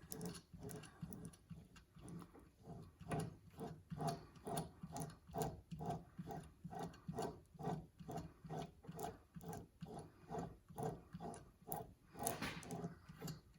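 Faint, rhythmic clicking and squishing, about two strokes a second, from the greased gear train of a KitchenAid Pro 550 HD stand mixer being turned by hand. The repaired gears spin freely.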